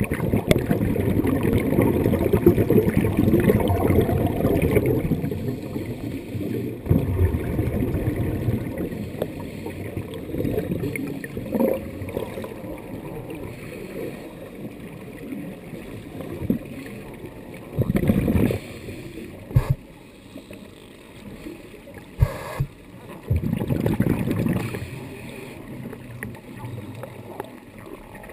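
Scuba diver's exhaled bubbles from the regulator, heard muffled and low underwater: one long rushing, gurgling stretch at first, then shorter bursts later, with a couple of sharp clicks in between.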